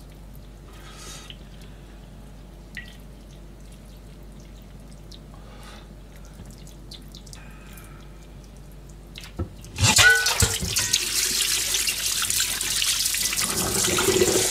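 Kitchen tap turned on about ten seconds in, a stream of water running into a stainless-steel sink and splashing over hands being rinsed under it.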